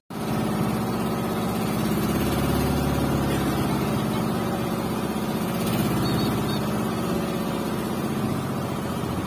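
Boat engine running steadily at an even speed.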